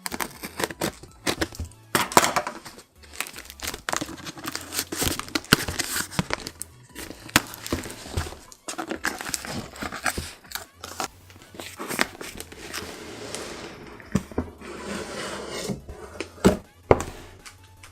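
Figure packaging being opened by hand: crinkling and tearing of wrapping with many small clicks and knocks as the box is handled.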